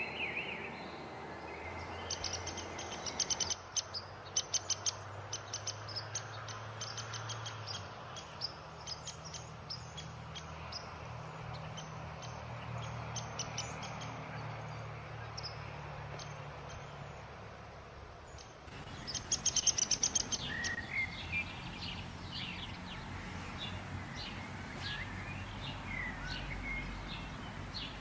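Wild birds chirping and calling: runs of rapid, high, repeated chirps about two seconds in and again near the middle, then scattered separate calls, over a faint steady background.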